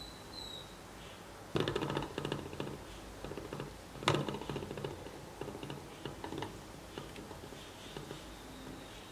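Homemade three-piston Stirling engine with its magnet generator running, rattling and clicking as the piston shakes the magnet in its plastic coil holder. A fast run of rattles comes about 1.5 seconds in, a sharp knock about 4 seconds in, then lighter irregular clicks.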